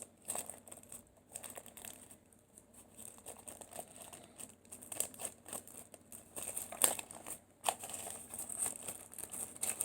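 Plastic packaging crinkling and rustling as it is handled, with scattered light clicks and a few sharper taps, busier in the second half.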